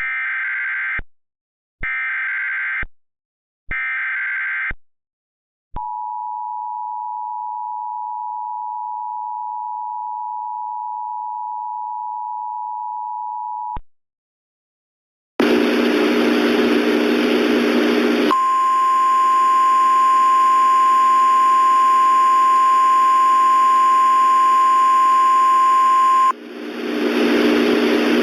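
Emergency Alert System tones: three short bursts of warbling SAME digital header data, then the two-tone EAS attention signal held for about eight seconds. After a short gap comes loud radio static, with a single steady alert tone over it for about eight seconds in the middle.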